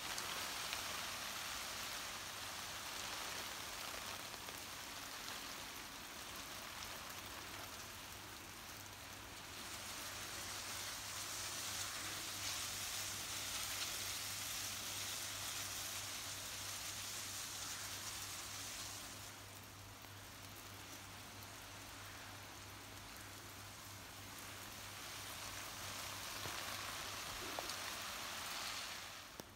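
Water spray from an oscillating garden sprinkler hissing and pattering down on leaves and grass like rain. It swells louder and softer in long, slow waves.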